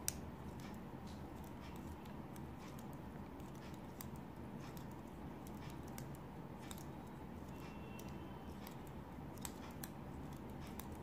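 Faint, irregular small clicks and ticks of a tatting shuttle and thread being worked by hand while double stitches are formed, over a steady low hum; one sharper click right at the start.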